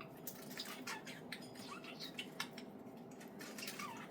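Budgerigars chirping softly amid a scatter of small quick clicks and taps.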